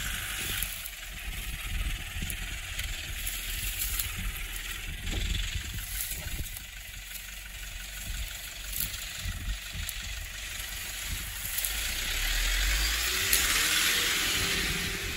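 Toyota Land Cruiser KDJ120's diesel engine running as the 4x4 crawls over a steep dirt slope, with a low rumble under a steady hiss; it gets louder near the end as the revs rise.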